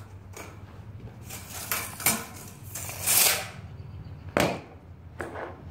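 Knocks, clicks and a short scrape as small tools are handled and set down on a wooden workbench, over a steady low hum.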